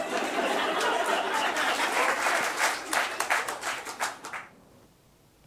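Sitcom-style audience applause, many hands clapping, which swells at once and dies away about four and a half seconds in.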